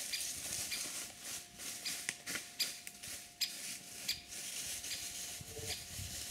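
Footsteps crunching through dry fallen leaves and twigs, with irregular crackles and rustling as branches of a windfall are pushed through.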